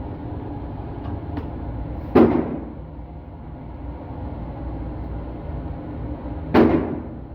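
Two gunshots from an AR-style gun, a little over four seconds apart, each a sharp crack with a short ringing tail; the second one runs the magazine empty so the bolt locks back.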